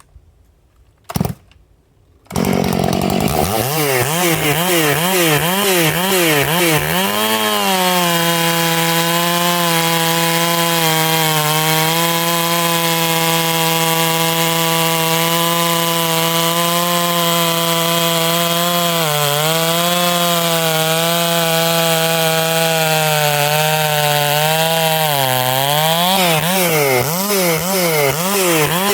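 Stihl 461 two-stroke chainsaw with a Stihl Hexa chain. After a single sharp knock it starts about two seconds in and revs up and down a few times, then runs at full throttle cutting wood, its pitch held steady under load. The pitch dips briefly near the middle and again near the end.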